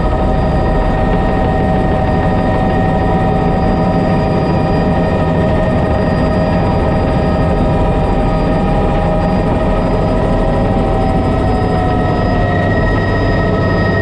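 Bell 206 JetRanger helicopter heard from inside the cockpit in low-level flight. Its Allison 250 turboshaft gives a steady whine over the dense, even rumble of the engine and rotor, with one tone dipping slightly near the end.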